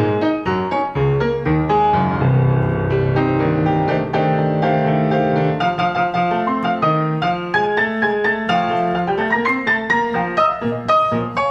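Music led by a piano playing busy, quick runs of notes.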